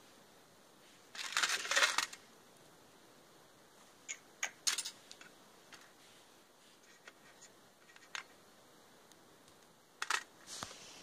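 Small metal earrings and studs clicking against each other and a metal tin as fingers rummage through it, with a brief crinkle of plastic bags. A short rustling burst comes about a second in, a few light clicks follow around four seconds in, and another short burst comes near the end.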